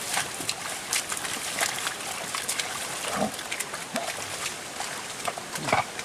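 A pair of bullocks pulls a wooden plough through a flooded rice paddy, puddling it: repeated squelches and splashes of hooves and plough in wet mud. There are short grunting calls about three seconds in and again near the end, the last being the loudest.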